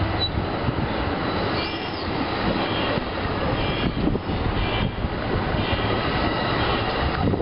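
NJ Transit multilevel passenger coaches rolling close past a station platform as the train pulls out, a loud, steady rumble of wheels on rail. Faint, brief high-pitched wheel squeals come through a couple of times.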